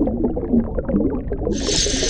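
Creature sound effects: low, wavering growl-like calls, joined by a loud hiss starting about a second and a half in.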